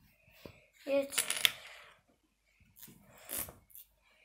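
Small plastic Lego pieces clicking and clattering, in two short bursts, about a second in and about three seconds in.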